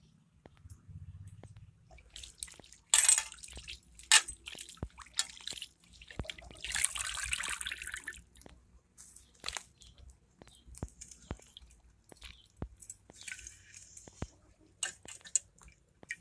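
Water splashing and dripping in a metal pan as chicken offal is rinsed by hand, in irregular bursts. There are sharp splashes about three and four seconds in, and a longer pour of water runs off the hands about six to eight seconds in.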